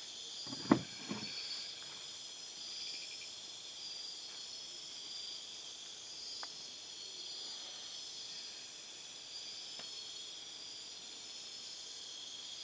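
Night chorus of rainforest crickets and other insects: a steady, high-pitched trilling. Less than a second in there is one short, sharp, louder sound.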